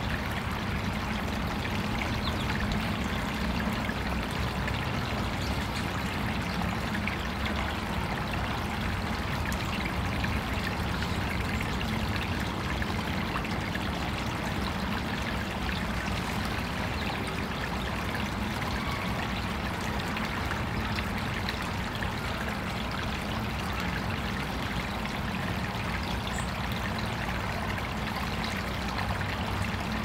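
Water of a small artificial backyard stream running steadily.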